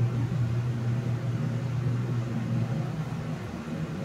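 Electric air fryer preheating at 200 °C, its fan and heater running with a steady low hum that eases slightly near the end.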